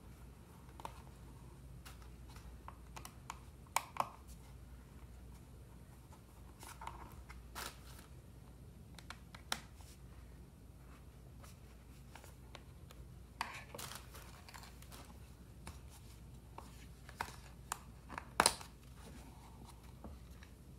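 Scattered light clicks and scrapes of a small Torx screwdriver working screws out of a GPS unit's plastic back case, with the housing being handled on the bench. The loudest is a sharp click about eighteen seconds in.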